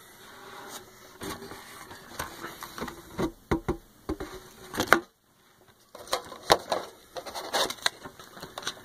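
Trading cards being handled and gathered by hand: an irregular run of quick clicks, taps and rustles, with a short break about five seconds in.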